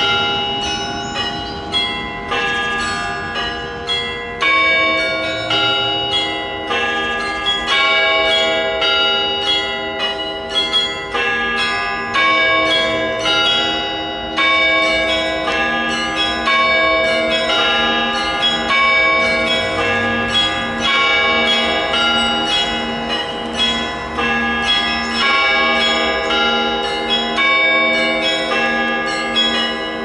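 Orthodox church bells rung in a continuous peal: quick, overlapping strikes of several bells of different pitch, each ringing on, with a lower bell sounding at a regular pace through the second half.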